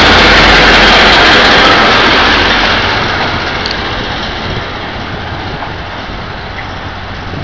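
Taiwan Railway diesel-electric locomotive R110 and its passenger coaches passing close by with engine and wheel noise. The noise is loudest in the first couple of seconds, then fades steadily as the train moves away.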